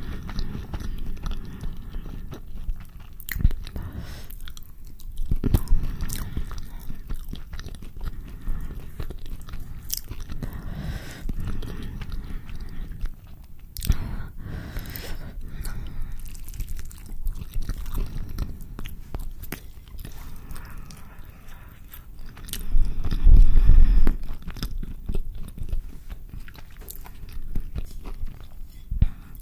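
Close-miked chewing and biting of a carne asada burrito in a flour tortilla: wet mouth sounds with many small sharp clicks. A louder low bump comes about three quarters of the way through.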